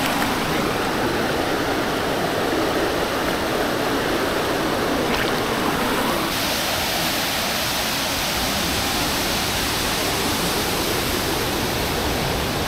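River rapids rushing over boulders: a steady, even rush of water, its tone dulling slightly a little after six seconds in.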